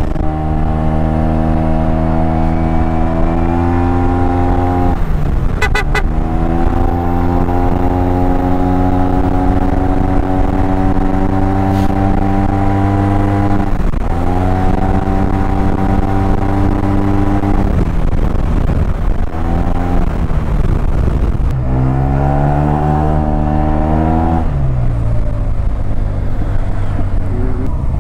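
Yamaha TMAX maxi-scooter's parallel-twin engine running on the move, its pitch climbing slowly under throttle and falling away each time the throttle is eased, several times over, with wind rumble underneath.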